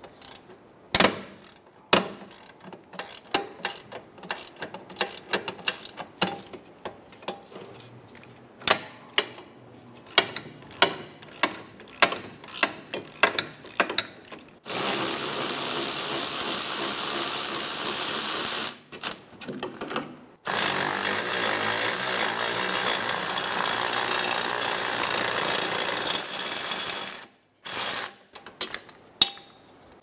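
Hand ratchet clicking in short, irregular strokes on a caliper bracket bolt, then a pneumatic tool running loud and steady in two long bursts, about four and seven seconds, with a short pause between and one brief burst near the end, as the caliper bracket bolts are backed out.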